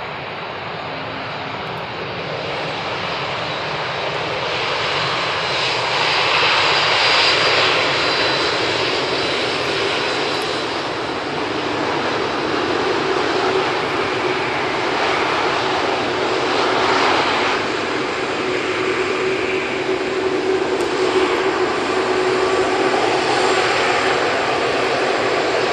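Jet airliner engines at departure power on an Airbus A320-232, with IAE V2500 turbofans. A dense, steady engine noise builds over the first several seconds, then holds loud and even with a faint drone underneath.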